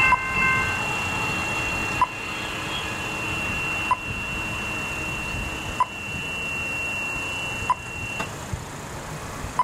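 Level crossing electronic bells ringing a steady high tone while the boom gates rise after a train has passed, cutting off about eight seconds in as the gates come fully up. A short pip repeats about every two seconds over low traffic rumble.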